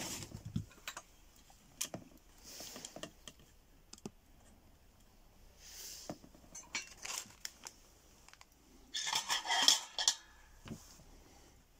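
Small hard objects handled on a workbench: scattered clicks and taps of tools, plastic and metal. About nine seconds in comes a short burst of clattering and rattling, the loudest moment.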